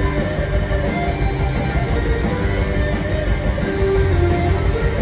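Live indie rock band playing, with strummed electric guitars over drums, loud and continuous.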